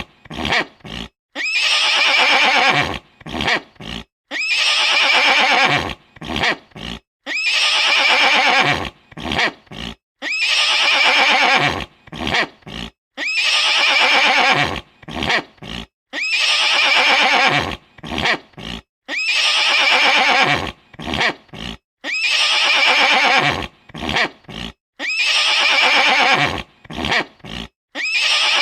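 Horse whinnying: the same long, quavering whinny repeats about every two and a half seconds, each time followed by a few short, sharp sounds.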